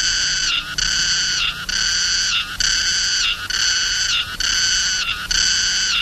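Cicada song: a high-pitched buzzing call repeated a little faster than once a second, each call dropping in pitch at its end.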